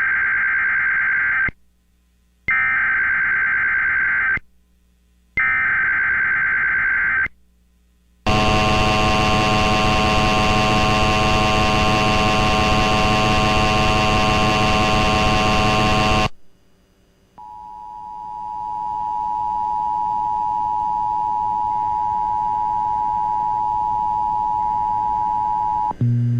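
Emergency Alert System activation tones: three SAME header data bursts, each a harsh warbling screech about two seconds long with short gaps between, then a loud, harsh steady tone with many overtones lasting about eight seconds. After a brief pause, a steadier two-tone attention signal fades in and holds for about nine seconds, cutting off just before the alert voice.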